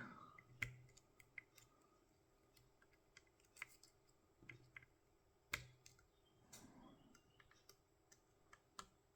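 Faint, irregular small clicks from picking a tubular hex-core lock: the pick and tensioner working the pins, each click a pin setting as the core creeps round. The loudest click comes about five and a half seconds in.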